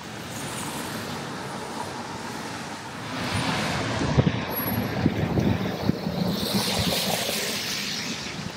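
A motor vehicle passing on a wet street, its tyre hiss and engine noise swelling about three seconds in and fading near the end, over street traffic.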